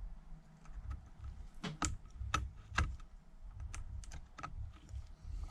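Small metal hand tools clicking and tapping on the opened iPad mini 2's internal parts while a stubborn screw is worked into place: a scattering of sharp, light clicks, the loudest a few around two to three seconds in.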